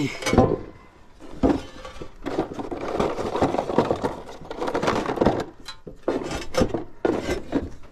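Knocks, clatter and scraping of a roof verge tile being handled and set down on wooden scaffold boards, with sharp knocks at the start and about a second and a half in.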